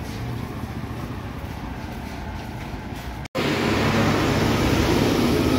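Roadside street traffic: a steady noise of passing vehicles and motorbikes. A little over three seconds in it cuts off abruptly and a louder, rougher outdoor noise takes over.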